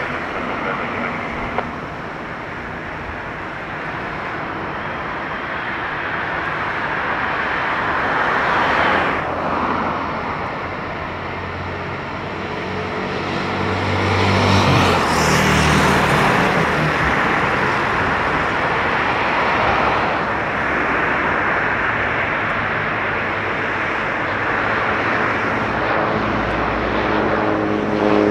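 Cessna 208B Grand Caravan's single turboprop engine and propeller on landing approach: a steady rushing drone that grows louder as the plane nears, with its propeller tones coming through near the end.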